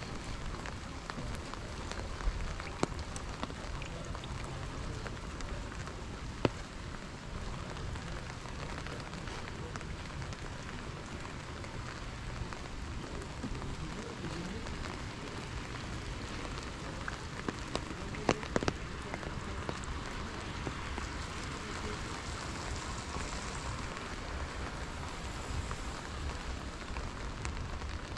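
Steady rain falling on wet pavement, with a few sharp ticks now and then.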